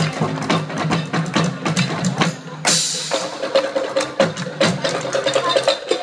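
Percussion played on recycled plastic drums and found objects: a dense run of quick, sharp hits, with a loud noisy crash about three seconds in.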